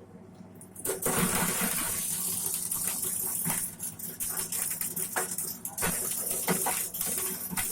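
Corn sheller machine starting up just under a second in and then running loudly and steadily, with many sharp clicks and knocks over its noise.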